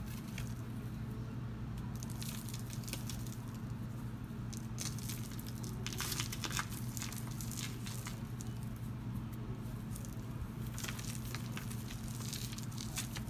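Powdery balls being crushed and crumbled by hand: dry crunching and crackling as the packed powder breaks into chunks and loose powder is squeezed between the fingers, heavier in a few bursts, over a steady low hum.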